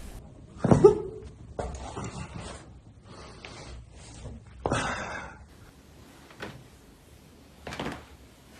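Short thumps and rustling of a body being shifted and pressed on a treatment table during a chiropractic adjustment. There are four of them, the loudest about a second in.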